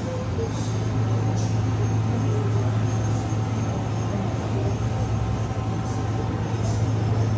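A steady low hum of shop machinery, with faint light ticks now and then.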